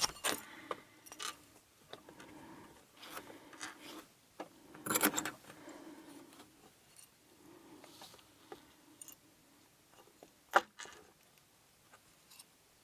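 Small metal clicks and rattles of a padlock and its key being handled and worked. There is a denser rattle about five seconds in and one sharp click about ten and a half seconds in.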